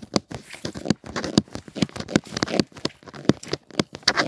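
Plastic blister packaging crinkling and crackling as it is handled, a quick, irregular run of sharp clicks.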